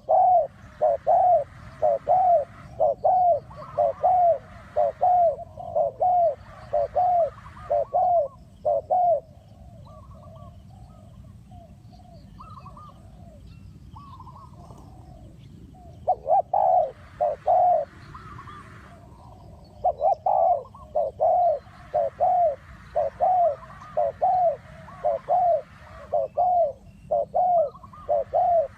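Spotted doves cooing in runs of short, repeated coos, about two a second. About nine seconds in the cooing stops for several seconds, leaving only faint higher chirps of other birds, then it starts again.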